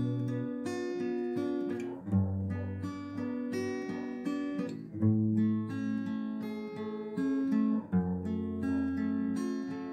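Background music on acoustic guitar: plucked notes over a low bass note that changes about every three seconds.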